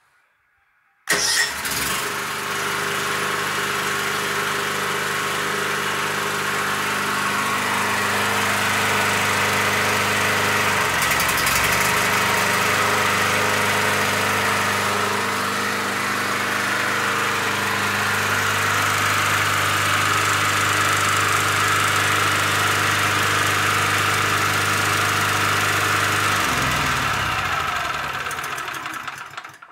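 Ferm 2200 portable petrol generator started with an electric starter from a homemade remote: the engine catches almost at once about a second in and runs steadily. Its speed dips and recovers briefly partway through, and near the end it slows and dies away to a stop.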